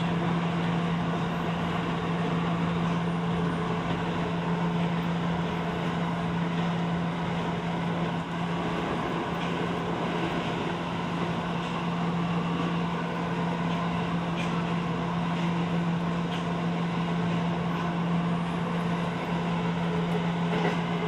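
Interior running noise of a Tokyo Metro Ginza Line subway train under way: a steady rumble of wheels and running gear with a constant low hum.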